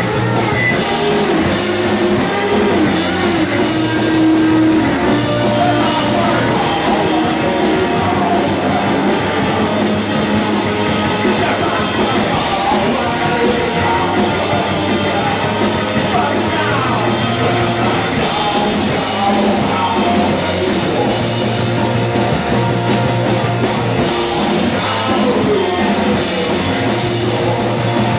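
Live rock band playing a song at full volume: electric guitar, electric bass and drum kit together, with a steady driving beat.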